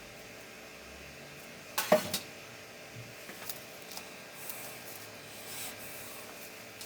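Sharp clicks and knocks of laptop parts and tools being handled. The loudest cluster comes about two seconds in, with fainter scattered taps after it over low steady background noise.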